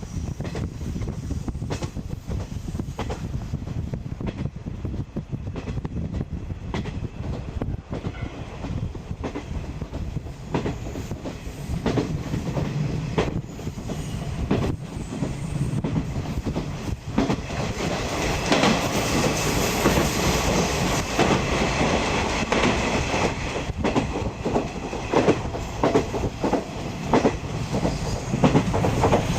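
A 50-series passenger coach running along the track: a steady rolling rumble with the clickety-clack of wheels over rail joints. Past the halfway mark it grows louder, with more hiss and clatter.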